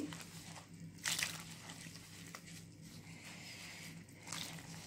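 A hand rubbing and working flour and egg in a wooden bowl, giving faint rustling and crunching.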